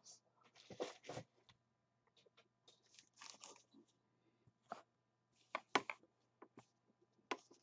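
Faint, scattered rustles, crinkles and taps of hands handling foil trading-card packs and printed paper cards, over a faint steady low hum.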